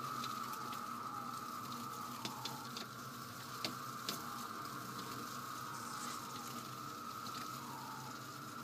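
A chorus of periodical cicadas (Brood II) making a steady, high droning buzz, with several calls that slide down in pitch. A few sharp ticks sound between about two and four seconds in.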